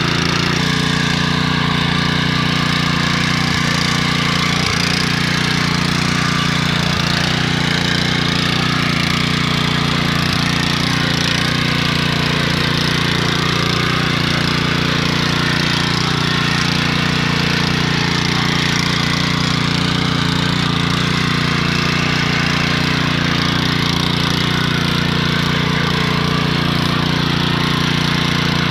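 Small petrol engine of a walk-behind rotary tiller running steadily under load, its tines churning through soil.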